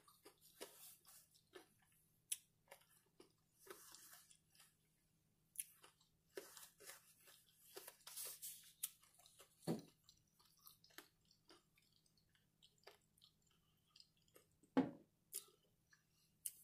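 Faint chewing and mouth sounds close to the microphone: scattered soft clicks and smacks as the last bite of breakfast is eaten, with a faint steady hum underneath.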